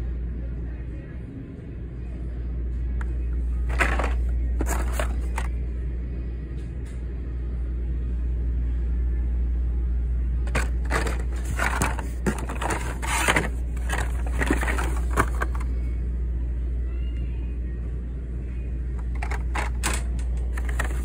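Crackling and rustling of plastic blister-packed cards and cardboard being handled, in short clusters: a few about four seconds in, a longer run from about ten to fifteen seconds, and more near the end. Under it lies a steady low rumble.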